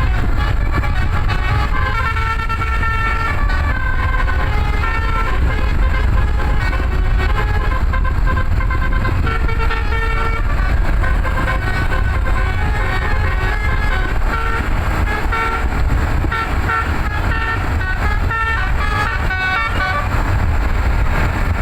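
Telolet basuri multi-tone bus horn playing a melody of short notes that step up and down in quick succession. A steady low rumble runs underneath.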